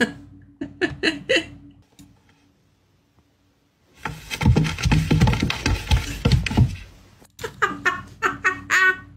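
A woman laughing in quick bursts near the start and again near the end. In between comes about three seconds of low, rough rumbling noise, the loudest part.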